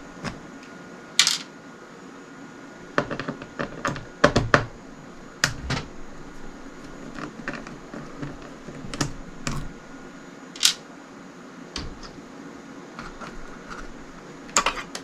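Irregular light clicks and taps of a screwdriver and handled parts as the screws holding an iMac's hard drive are taken out and the drive is worked free, with a few sharper knocks among them.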